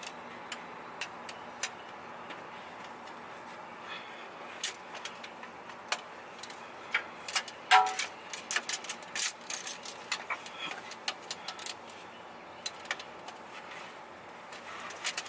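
Scattered small metallic clicks and clinks of hand tools being handled under a car during an oil change. They are sparse at first and come thick and fast in the middle, with one brief ringing clink about eight seconds in.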